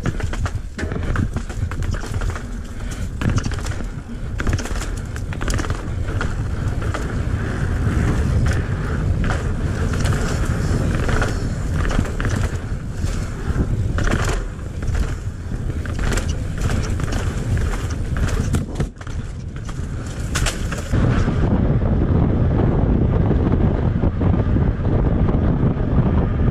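Mountain bike rolling over pavement and steps: tyre noise with frequent sharp rattles and knocks from the bike over bumps. About 21 s in, the clatter gives way to a steady low rush of wind on the microphone as the bike speeds along the road.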